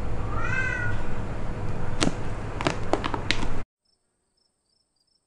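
A tabby house cat gives one short meow about half a second in, its pitch rising and then levelling. A few sharp clicks follow two to three seconds in, and then the sound cuts off to silence.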